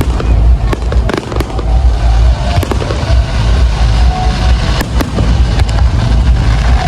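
A dense barrage of aerial fireworks: a continuous low rumble of bursts, with many sharp cracks and pops scattered through it.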